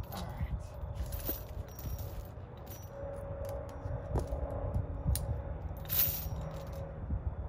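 A person shifting about on the ground with scattered light clicks and scrapes, and a short hiss about six seconds in.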